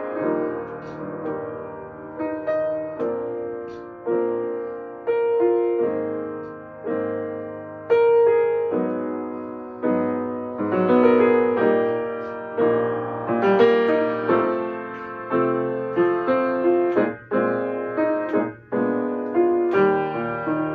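Acoustic upright piano played solo, chords under a melody, each chord struck and left to ring and fade before the next, about one a second.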